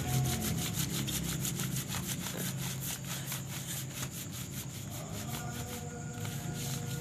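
Electric clothes iron rubbed quickly back and forth over a sheet of paper laid on Milo powder, a steady scraping rub of several strokes a second. The paper cover is kept moving under the hot iron so it does not scorch while the powder presses into a chocolate slab.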